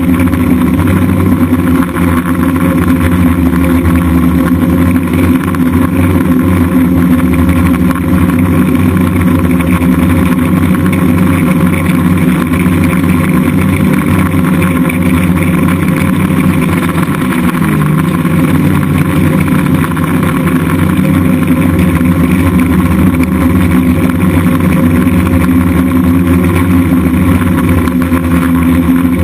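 DJI F550 hexacopter's six electric motors and propellers running in flight: a loud, steady multi-tone drone, dipping and bending in pitch briefly a little past halfway as the throttle changes.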